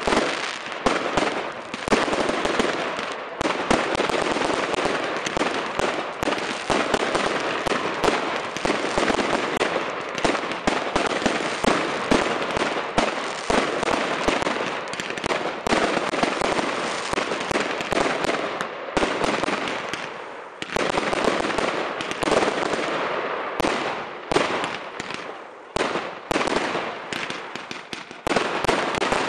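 Aerial fireworks going off in quick succession: a dense, unbroken run of bangs and crackling as shells rise and burst. The barrage eases briefly a few times in the second half, then picks up again.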